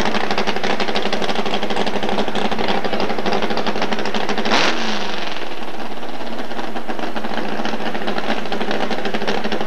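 Loud engine noise from a modified four-wheel-drive pulling truck, running steadily with rapid, even firing pulses. There is a single sharp click about halfway through.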